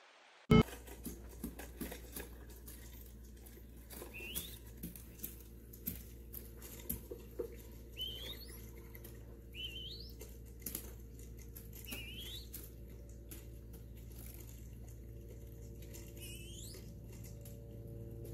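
A young dove pecking at loose seed on paper: a run of light, irregular clicks and taps, with a short rising bird chirp every two seconds or so and a steady low hum underneath. A sharp knock about half a second in is the loudest sound.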